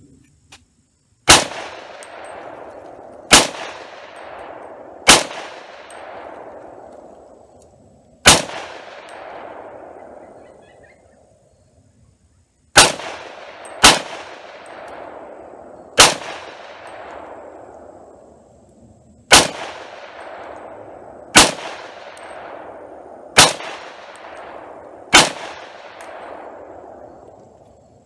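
Eleven single shots from an AM-15 .223 AR-style semi-automatic rifle, fired one to three seconds apart with a pause of about four seconds after the fourth. Each sharp crack is followed by an echo that fades over a second or two.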